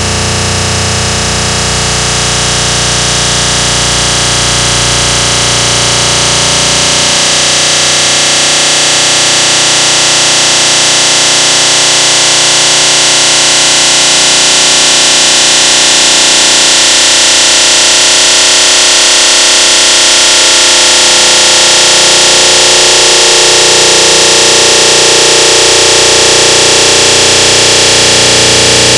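Loud distorted electronic noise: a dense hiss with several held tones beneath it. The low end drops away about seven seconds in, and the level swells slowly.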